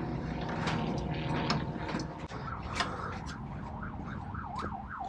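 Hand crank turning a semitrailer's JOST landing-gear legs in low gear, a steady mechanical whirr with clicks as the legs lower onto the ground. In the second half a warbling squeal rises and falls about three times a second.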